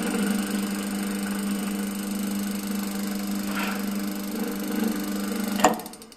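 Electric gear motor of a hollow-pipe drawing machine running with a steady hum. A sharp click near the end, after which the sound drops away.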